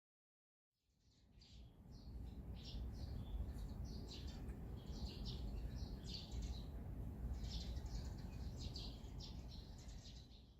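Small birds chirping over a steady low rumble, fading in about a second in and cutting off at the end.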